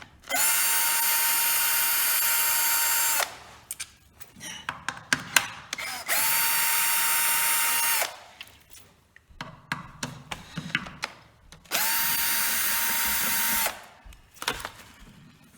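Electric drill driving out the Honda Zoomer's crankcase cover bolts: the drill runs three times, each time for two to three seconds at a steady speed. Small clicks and knocks come between the runs as bolts come free and are handled.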